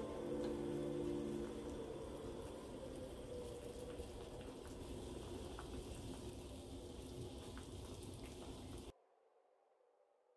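Spicy beef-intestine stew boiling hard in a heated earthenware ttukbaegi pot, a steady bubbling crackle that cuts off suddenly about nine seconds in.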